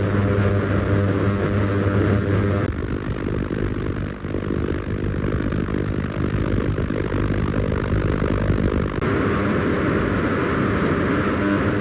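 EIWEI CD-E series ultrasonic cleaners running: a steady buzzing hum with a hissy edge from the tank's ultrasonic operation. The hum changes abruptly about a third of the way in and again near the end, as a different cleaner is heard.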